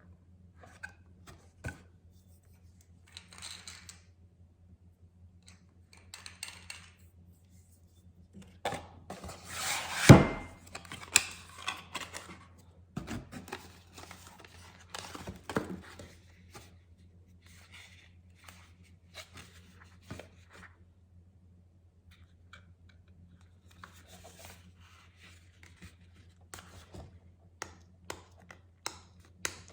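Packaging being opened by hand: scissors cutting, and paper or plastic tearing and rustling in short scattered bursts, with a loud burst about ten seconds in.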